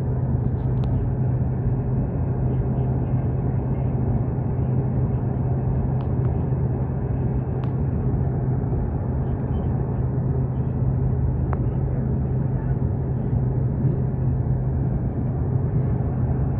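Steady road and engine drone heard from inside a moving car, with a constant low hum under it.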